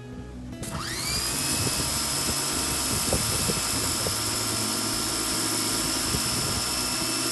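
Electric pressure washer motor starting up, its whine rising in pitch for about a second before settling into a steady high whine. The turbo nozzle's jet hisses against concrete the whole time.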